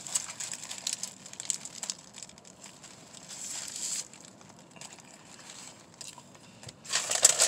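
Paper sandwich wrapper crinkling as a sub is handled and bitten into, with faint chewing clicks; the crinkling gets much louder near the end.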